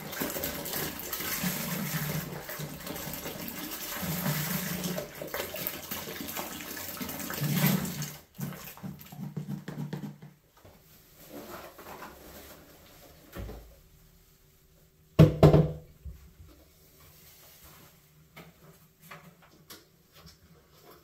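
Apple juice pouring from two cartons and splashing into a stainless steel fermenter, with a glug from the cartons every couple of seconds; the splashing aerates the juice for the yeast. The pour tails off about eight seconds in, followed by a few light knocks and one loud thump about fifteen seconds in.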